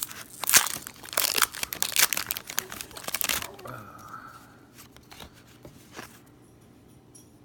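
A foil booster-pack wrapper being torn open and crinkled, loud and crackly for the first three and a half seconds, then quieter handling with a few light clicks.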